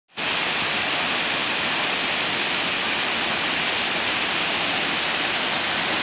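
Waterfall: water cascading down a face of boulders in a loud, steady rush.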